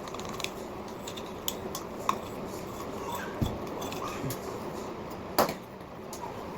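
Scattered sharp clicks and a low knock over a steady background noise, the loudest click about five seconds in.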